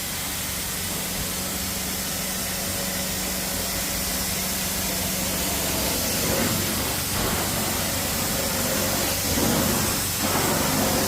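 Carpet-cleaning extraction wand being worked over the carpet, spraying and sucking up water with a steady hiss over the low, even hum of the cleaning machine's motor.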